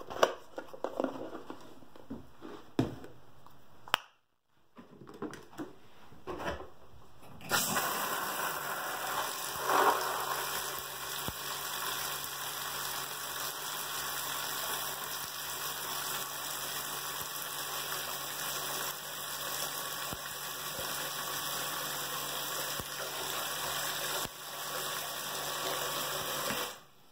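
Water from the bathtub tap running into a plastic bucket with a rock in it: a steady rush that starts about a quarter of the way in and stops suddenly near the end. Before it come a few handling knocks and clatter.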